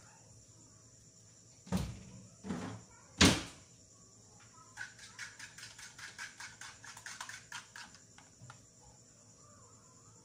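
Three sharp knocks a little under a second apart, the third the loudest, then a quick run of light clicks, about five a second, for some three seconds.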